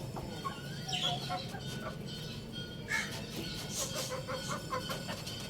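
Chickens clucking, with scattered short calls and chirps over a steady low hum; no full crow.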